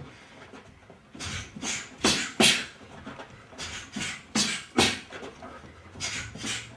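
Padded boxing gloves striking in quick flurries, each punch a short sharp smack with a hissed exhale, in three groups of three or four strikes.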